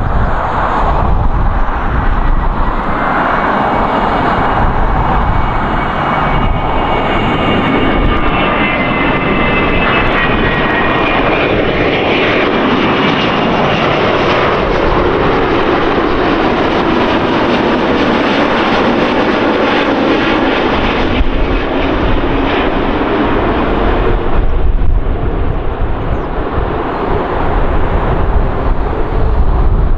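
Airbus A330neo's Rolls-Royce Trent 7000 turbofans running on a landing approach and touchdown: a steady dense jet noise, with a thin high whine over it in the first part, and the sound sinking in pitch through the middle as the airliner passes.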